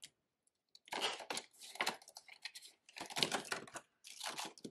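Paper banknotes and clear plastic binder pockets rustling and crinkling as they are handled. There are about four short bursts of crinkling, starting about a second in.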